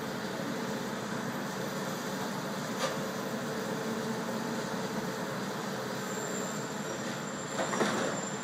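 Tracked excavator's diesel engine running with a steady hum. A single sharp knock comes about three seconds in, and a short, louder metallic clatter comes near the end.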